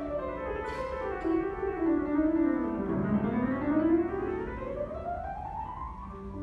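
Concert grand piano playing a long run of notes that sweeps down for about three seconds and then climbs back up.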